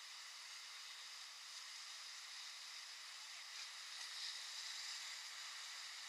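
Steady hiss of rushing whitewater around an inflatable raft running river rapids, thin with little low end, swelling slightly about three and a half to five seconds in.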